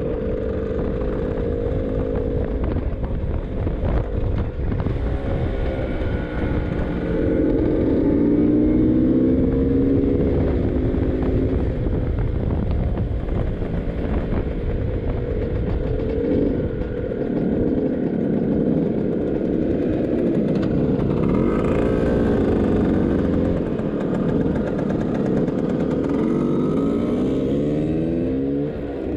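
Vintage scooter's two-stroke engine running on the road, its pitch rising and falling with the throttle and gear changes. It bogs down as it runs rich, a fault the rider expects a dyno tune to sort.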